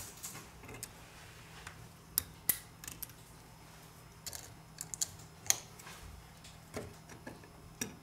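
A plastic pry tool clicking and tapping against a smartphone's metal-shielded motherboard and frame as the board is pried loose and lifted out: a scattering of small, sharp clicks, two of them louder.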